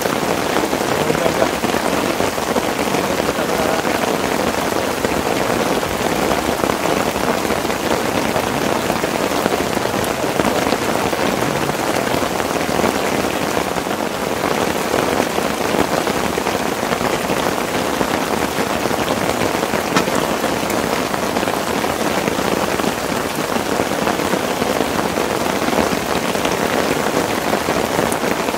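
Heavy rain falling steadily on a camping tent, a dense unbroken hiss of drops.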